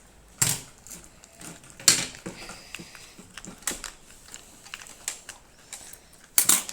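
Scissors snipping through a plastic blind-bag package: a run of sharp clicks and crinkles, with louder snips about half a second in, about two seconds in, and a double one near the end.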